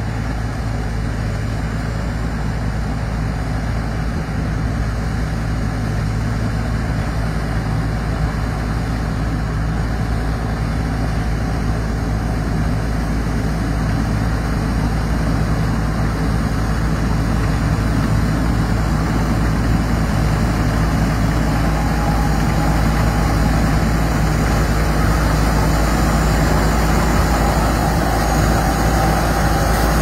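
Rice combine harvester's engine running steadily under load while it cuts rice, growing gradually louder as the machine comes closer.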